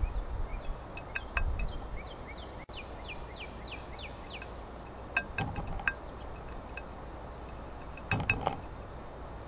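A blue jay pecking at birdseed in a glass dish, its beak clicking sharply on the glass in two short clusters in the second half. Before that a bird gives a rapid series of thin, falling chirps.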